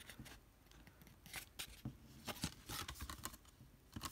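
Faint scattered clicks and rubbing of a plastic Blu-ray case being handled.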